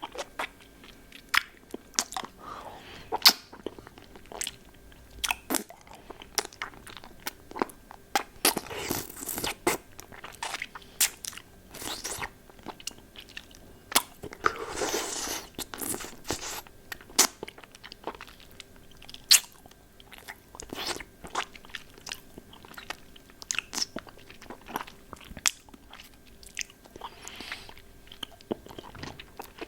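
Close-miked mouth sounds with a hard-candy lollipop: irregular sharp clicks and crunches of candy against teeth, with two longer rustling, noisy stretches about nine and fifteen seconds in.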